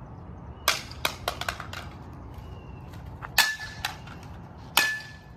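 A youth baseball bat smashes a small plastic RC car remote control against a concrete driveway: three sharp hits, about a second in, then twice more near the end. The last two hits carry a brief ringing ping from the bat, and small pieces clatter across the concrete after each hit.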